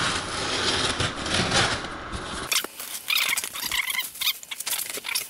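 Box cutter slicing along the packing tape of a cardboard box, then the flaps pulled open and the bubble wrap inside rustling and crackling under a hand from about halfway through.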